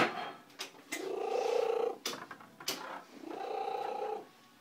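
A domestic cat purring very loudly in rhythmic swells of about a second each, with short pauses between them, twice here. Several sharp clicks are heard as well, the loudest right at the start.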